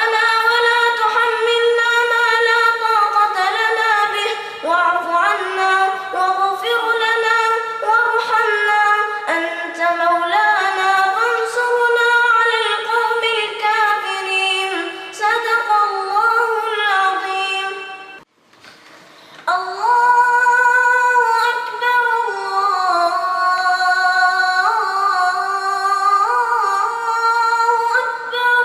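A child's high voice reciting the Quran in melodic tajweed style, unaccompanied, with long held notes ornamented by gliding turns. There is one breath pause about two-thirds of the way through before the recitation resumes.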